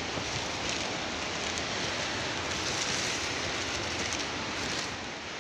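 Steady rain hiss with faint scattered drop ticks, from rain falling on the plastic sheets worn as rain covers.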